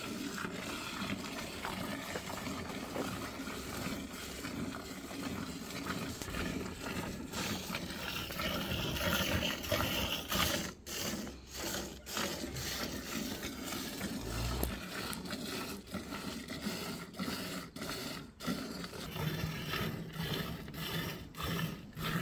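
Cow being hand-milked by two people at once, milk squirting from the teats into a half-full enamel bucket. A steady rush of streams hitting the milk, breaking into quick separate squirts, about two a second, in the second half.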